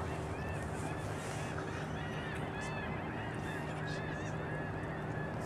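A flock of birds calling: many short, arching calls overlapping throughout, over a steady low hum.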